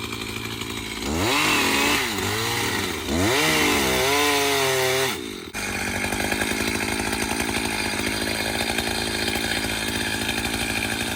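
Chainsaw engine running, revved up twice, once about a second in and again about three seconds in, each time rising in pitch and dropping back, then a sudden change to steady running for the rest.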